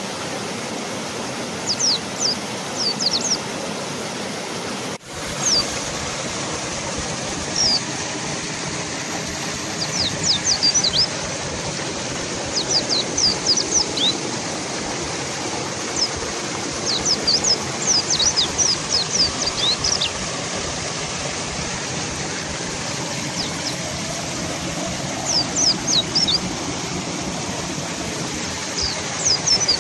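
Fast-flowing river water rushing steadily, with mountain white-eyes giving clusters of short, high, falling chirps every few seconds.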